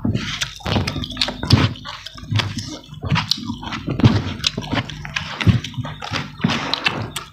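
Wet, sticky eating sounds: fingers squishing and kneading rice and pulling at spicy chicken knuckles on a banana leaf, with chewing and lip smacking in many irregular short smacks and clicks.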